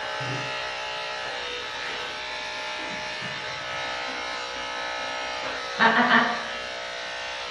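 Electric dog grooming clippers running with a steady hum while shaving a dog's coat short. About six seconds in there is a brief, louder burst.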